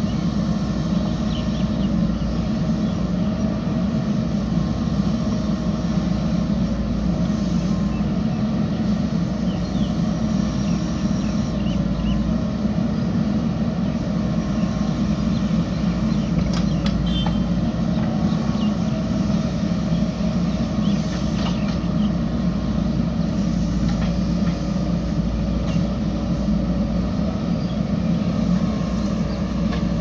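JCB 3DX backhoe loader's diesel engine running steadily under load while the hydraulic backhoe arm digs and swings soil into a dump truck, with a few faint knocks along the way.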